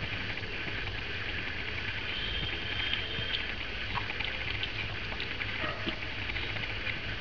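Mother cat licking her newborn kittens: faint wet licking and small clicks over a steady hiss.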